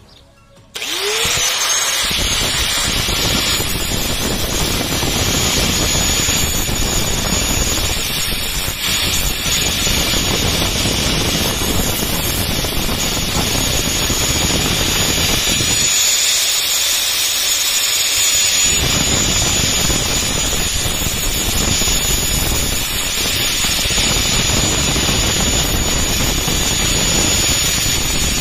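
Angle grinder switched on about a second in, spinning up and then running with a steady high whine as the hardened steel tips of wire-cutting pliers are ground down on its disc. The grinding noise eases for a few seconds about two-thirds of the way through, then resumes.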